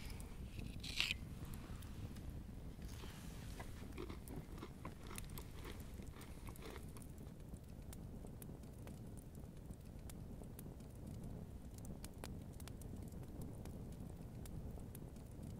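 Campfire crackling, with scattered sharp pops over a low steady rumble. In the first few seconds there are crunching and handling noises close by, the sharpest about a second in.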